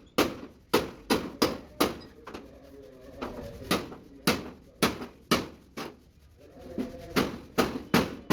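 Hammer blows on a truck cab's sheet-metal body panel, sharp strikes in irregular runs of about two a second with short pauses between runs.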